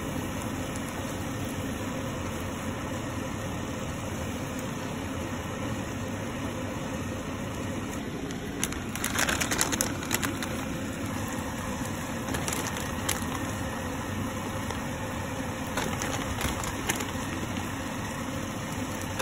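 Pan of spaghetti in tomato sauce cooking on a gas hob, giving a steady, even noise throughout. About halfway through there is a run of scrapes and clacks, with a few more later, as a plastic slotted pasta spoon works the pasta against the pan.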